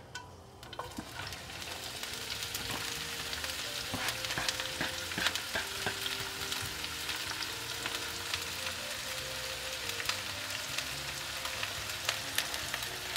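Chopped Chinese chives dropping into hot oil in a sauté pan and sizzling. The frying hiss starts about a second in and then holds steady, with scattered crackles and clicks as the chives are pushed in off a plastic cutting board.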